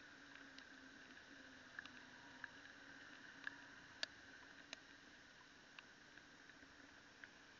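Near silence: a faint steady hum and hiss with scattered faint clicks, the loudest about four seconds in.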